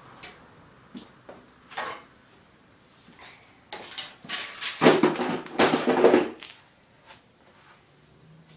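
Metal clanging and banging as a desktop computer tower's sheet-metal case is struck: a few scattered knocks, then a flurry of loud rapid blows with ringing about four to six seconds in.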